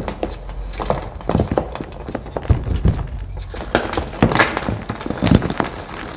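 Crunchy dyed powder blocks being squeezed and broken apart by hand, crumbling into powder with an irregular run of crackles and several louder crunches.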